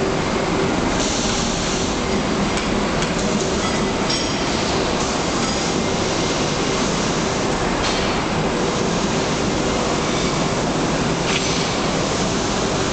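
Steady machinery noise in an industrial welding shop, with a constant hum and a few short bursts of hiss.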